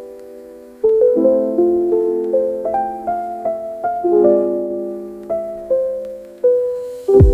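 Background music: a gentle piano-style melody of single struck notes, each fading away, with a deep bass note entering near the end.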